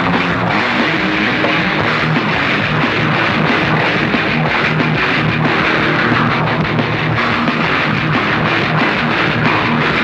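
Raw, lo-fi black metal recording from a cassette release: a dense, unbroken wall of distorted guitar with drums hitting underneath, at a steady loudness.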